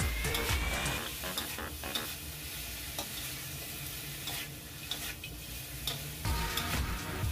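Spare ribs and dried mushrooms sizzling in a wok while a spatula stirs and scrapes them, with sharp clicks of the spatula against the pan.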